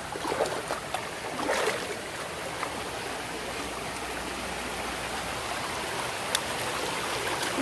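Shallow mountain stream running over rocks and stones, a steady rush of water, with a few brief louder noises in the first two seconds and a sharp tick near the end.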